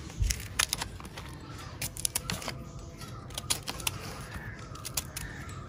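Knife cutting tender jackfruit into small pieces: an irregular run of short, sharp clicks and taps.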